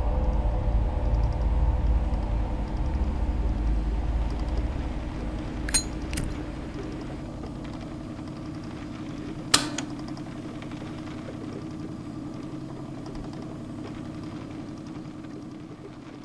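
Low, steady rumbling drone that slowly fades, broken by two sharp clicks, about six and nine and a half seconds in, as a handheld lighter is flicked.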